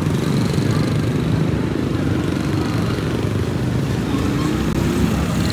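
Motor vehicle engine running steadily, with a brief rise in pitch about four and a half seconds in.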